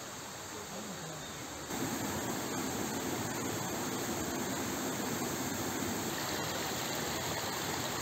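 Shallow stream running over stones: a steady rush of water that comes in suddenly about two seconds in. Before it, quieter outdoor background with faint voices.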